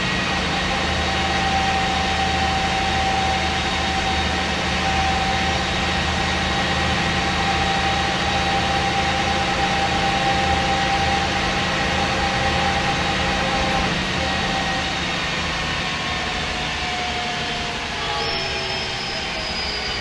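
MAN SD202 double-decker bus with its MAN D2566 MUH diesel engine and Voith Diwa 851 automatic gearbox, running at a steady speed: a low engine rumble with a steady drivetrain whine. About fourteen seconds in the engine eases off, and near the end the whine falls in pitch.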